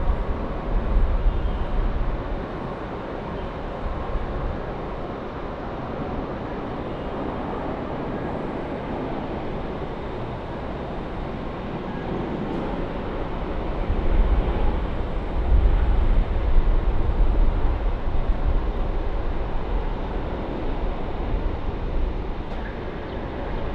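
Jet airliner engine noise: a steady rushing with a deep rumble that swells louder about two thirds of the way through.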